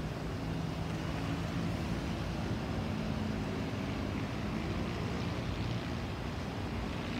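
Airbus A320-214 airliner with CFM56-5B turbofan engines passing overhead in flight, a steady jet rumble and hiss with faint low hums under it.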